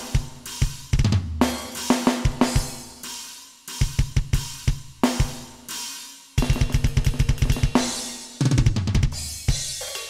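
Alesis Nitro Mesh electronic drum kit played through custom metal drum samples: stop-start snare and crash hits, tom fills and fast double-kick runs.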